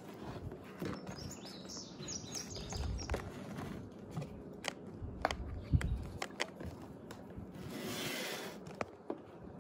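Spoons clicking and scraping in plastic bowls as glue slime is stirred, with a few dull bumps on the table. Birds chirp in the background about a second in, and near the end a short hiss as activator is squeezed from a bottle.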